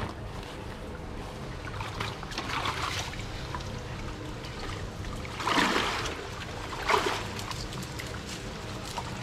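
Water splashing and sloshing, with louder splashes about five and a half and seven seconds in, over a steady low rumble.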